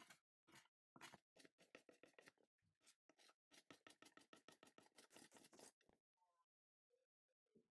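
A metal blade scraping along a wooden walking stick, stripping the remaining bark. Single strokes come first, then rapid runs of short scratchy strokes, stopping about six seconds in.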